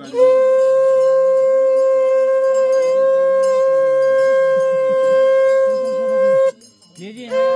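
Conch shell (shankh) blown in one long, loud, steady note. About six and a half seconds in it stops for a breath, and near the end it starts again.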